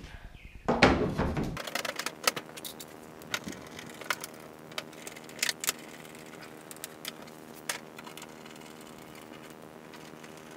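Plastic inner trim panel of a Ford F-150 tailgate being laid onto the tailgate and fastened down. A clatter about a second in as the panel goes on, then scattered sharp clicks and snaps as it is pressed and fastened into place.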